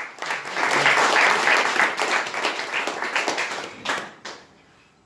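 Audience applauding for about four seconds, then dying away.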